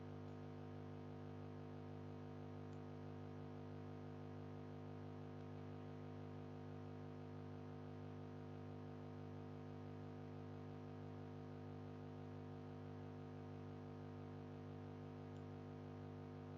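Faint steady electrical hum, a low buzz with a stack of even overtones, unchanging throughout; typical of mains hum picked up in the microphone line.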